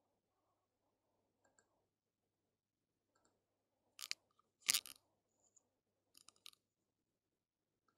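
Clicks of a computer mouse and keyboard: a few soft clicks, then two louder clacks about four and a half seconds in, and a quick run of clicks around six seconds, over faint background hiss.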